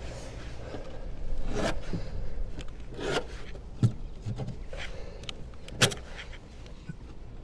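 Handling noise of rubbing and scraping, broken by a few sharp clicks and knocks, the sharpest one near the end, while the gutter repair is being worked on by hand.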